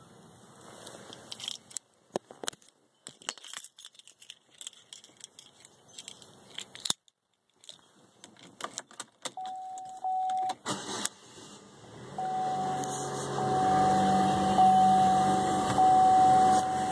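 Car keys jangling with scattered clicks and rattles of handling inside the car. About ten seconds in, a steady dashboard warning chime starts, breaks off, then comes back and pulses regularly about once a second over a low hum.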